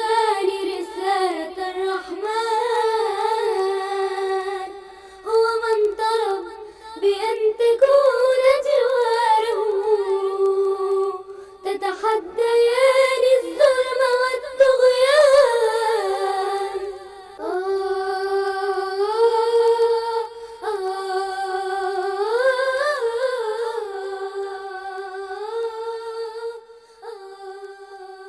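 A high-pitched voice singing or humming a wordless a cappella melody of long held notes that glide up and down, with short breaths between phrases, fading near the end.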